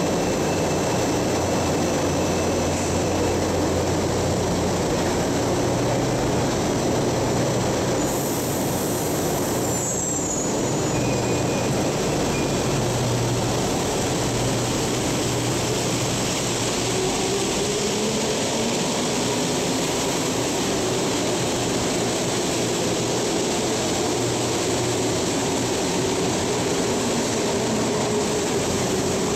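CAF-built rubber-tyred metro train pulling out of a station platform, with a steady loud rumble of train and station noise. About halfway through, a whine from its traction motors climbs in pitch as it gathers speed.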